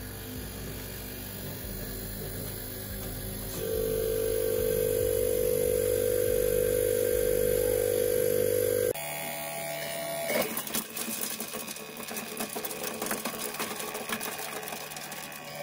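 Electric meat mincer's motor running with a steady hum that grows louder a few seconds in; about halfway through it changes abruptly to a rattling, clicking running sound.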